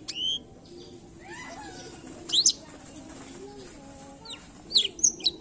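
Blackthroat (black-throated canary) singing: short phrases of high, sharp chirps and whistled notes sweeping up and down, separated by pauses, with a quick run of notes near the end.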